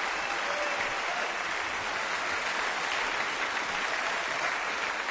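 Rock concert audience applauding, a dense steady clatter of many hands.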